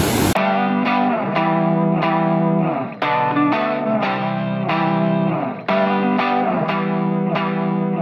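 Background music: an effects-laden guitar playing a short repeating phrase of plucked notes and chords, cutting in abruptly about a third of a second in and repeating about every two and a half seconds.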